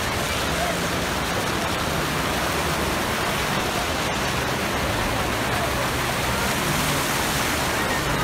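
Floodwater rushing across a road in a steady, unbroken rush of water.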